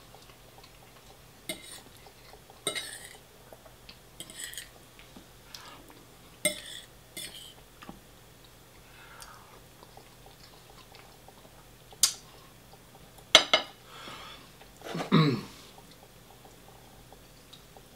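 Cutlery clinking and scraping against plates and takeaway containers while eating: scattered short clicks and brief scrapes, the loudest few near the end.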